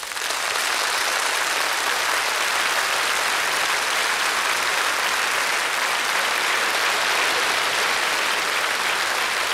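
Large audience applauding, the clapping swelling in at the start and then holding at an even level.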